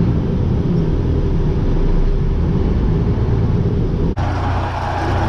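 Diesel engine of a Freightliner semi truck running at low speed. The sound breaks off and changes abruptly about four seconds in.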